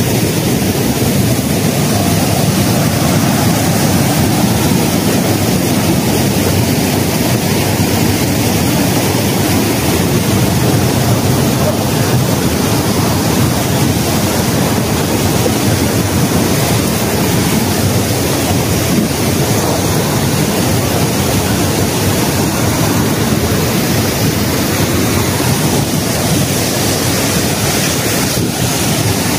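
Waterfall rushing, a loud steady noise without breaks.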